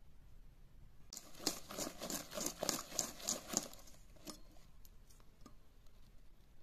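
Coil-spring whisk beating thin cake batter in a stainless steel bowl: a quick run of rhythmic strokes, about three a second, with the wire scraping and tapping the bowl. Near the end a few light single clicks as the whisk slows and is lifted.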